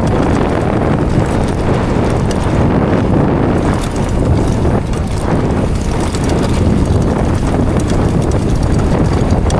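Mountain bike descending a rough fell trail at speed: wind rushing over the microphone and tyres rumbling on rocky ground, with a constant fine clatter of the bike rattling over the rough surface.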